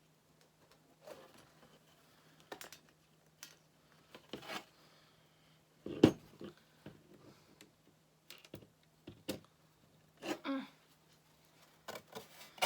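Scattered small clicks, scrapes and rustles of a pipe cleaner being worked through a punched hole in a thin metal sign, with one sharper knock about six seconds in.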